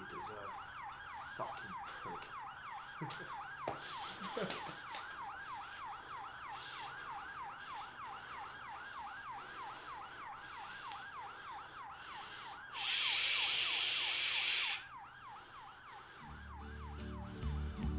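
Police siren in a fast yelp, rising and falling about three times a second, fading away near the end. About two-thirds of the way through, a loud burst of hiss lasts about two seconds. Music comes in just before the end.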